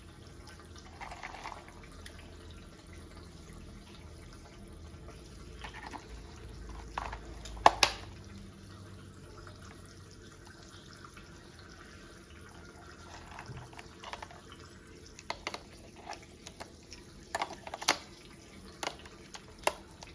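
Scattered light clicks and taps of plastic toy parts being handled and fitted together, with two sharper snaps a little before halfway and a run of small clicks near the end, over a faint background hiss.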